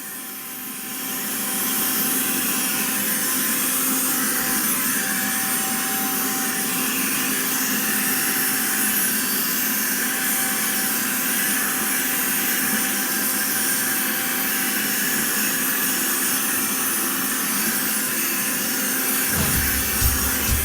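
Black+Decker APB3600 cordless handheld vacuum running, picking up dust. Its motor comes up to speed over the first second or two, then gives a steady whine over a rush of air. A few low bumps come near the end.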